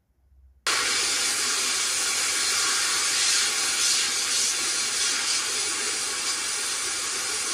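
Sandblasting gun in a blast cabinet hissing steadily as it blasts rust off a flat steel strap, starting suddenly about a second in.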